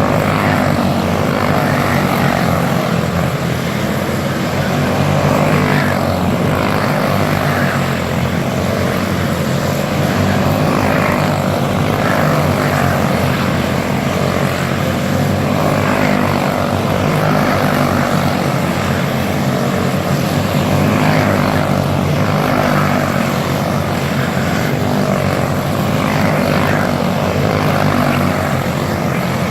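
Several racing kart engines, single-cylinder four-stroke Briggs & Stratton Animals, running hard together in a race heat. Their buzz rises and falls in pitch as the karts accelerate and lift.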